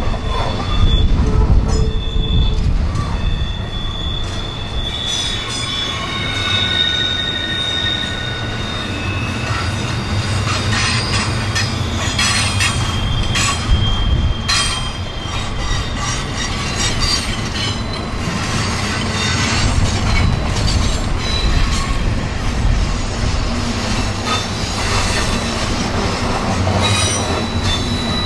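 Train rolling past with its steel wheels squealing on curved track. Several high, held screeches come and go over a steady low rumble, with scattered clanks from the cars.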